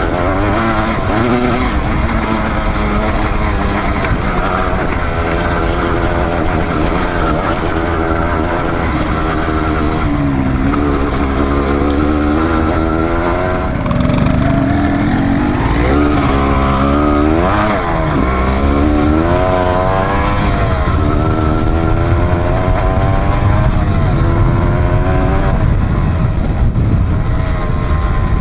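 A dual-sport motorcycle engine running under load on a trail, its revs rising and falling again and again with the throttle, over a steady low rumble.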